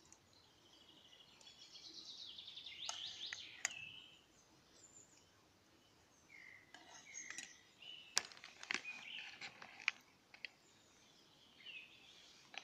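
Songbirds singing in the woods, short chirps and whistled phrases, with a few sharp clicks of a metal spoon against an aluminium camping pot as soup is eaten.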